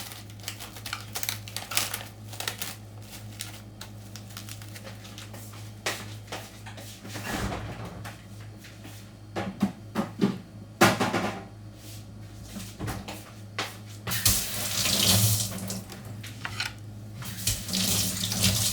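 Kitchen tap running into a sink in spurts, loudest near the end, with scattered knocks and clatter of items being rinsed and handled. A steady low hum runs underneath.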